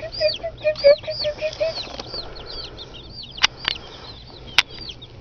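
Chickens calling in a coop: quick high chirping notes several times a second throughout, with a run of short low clucks in the first second and a half. A few sharp taps come in the middle.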